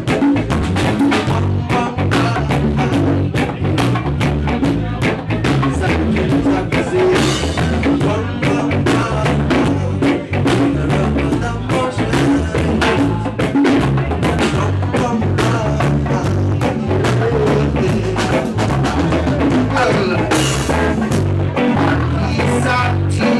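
Live band playing with a steady beat: drum kit and congas over a stepping bass line and electric guitar, with voices singing into microphones.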